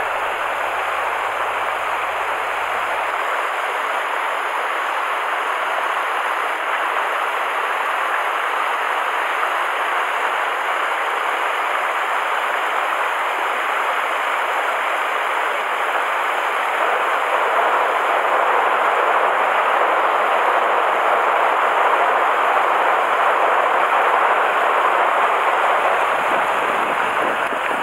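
Shallow river water rushing steadily over rocks in a small riffle close by, getting a little louder about two-thirds of the way through.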